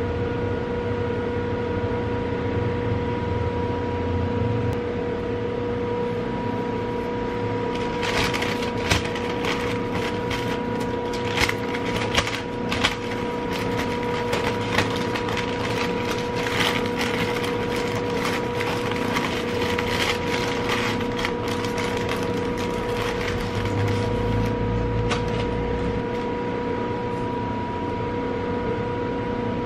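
A sheet of paper crinkling and crackling as hands fold it around a sandwich. The crackles come thick for about fifteen seconds, starting about eight seconds in. Underneath is a steady hum with a faint high whine.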